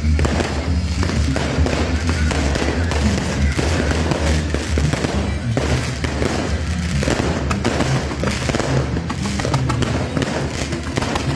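Fireworks going off in rapid succession, a dense run of crackles and bangs, over loud music with a steady deep bass.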